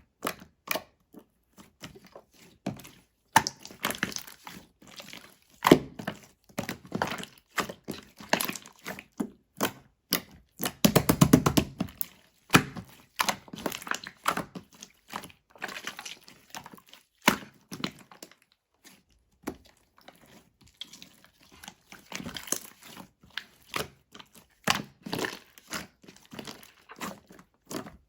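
Light-green crystal ball being crunched and squeezed: irregular crackling, clicking and crunching, with a louder, denser crunch about eleven seconds in.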